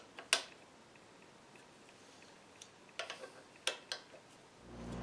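Scattered light metallic clicks and taps from a screwdriver working screws on a metal stepper-motor mounting plate, the loudest about a third of a second in and a cluster of four more after about three seconds. A steady low hum fades in near the end.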